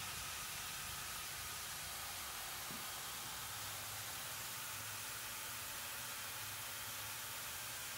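Steady, even hiss of moving air from a paint spray booth's ventilation, with a faint low hum beneath it.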